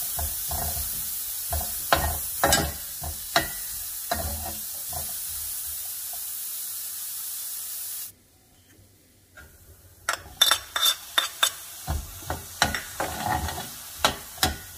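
Diced onion and jalapeño sizzling in oil and bacon grease in a stainless steel frying pan, with a spatula scraping and clacking against the pan as it stirs. About eight seconds in it drops to near silence for a moment, then the sizzling returns with a quicker run of sharp clacks as diced tomato is stirred in.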